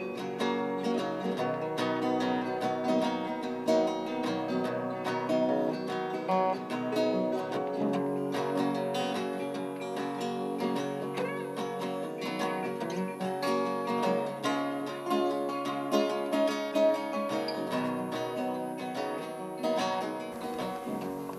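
Instrumental acoustic guitar music, plucked and strummed with quick runs of notes, without singing.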